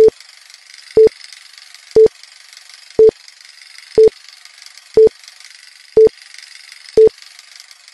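Countdown sound effect: eight short, identical beeps, one each second, over a steady faint hiss.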